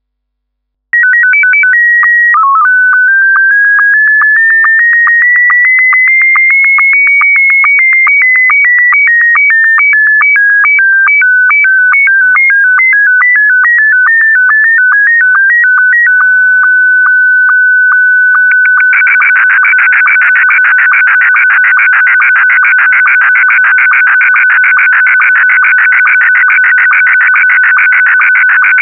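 Slow-scan television (SSTV) signal in Scottie 1 mode: a loud stream of beeping audio tones that starts about a second in. At first the tones step up and down in pitch with regular ticks, then settle on one steady tone. About two-thirds of the way through the signal turns into a dense, buzzy warble of rapidly changing tones as the picture data is sent.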